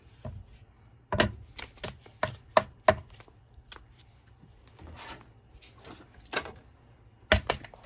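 A knife cutting through paper on a hard surface: a series of short, sharp, irregular strikes and scrapes, bunched in the first few seconds and again near the end. The blade isn't cutting cleanly.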